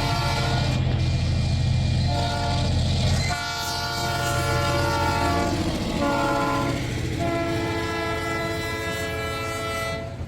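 Train horn sounding in several long blasts, its chord shifting lower between blasts, over a locomotive rumble that stops about three seconds in.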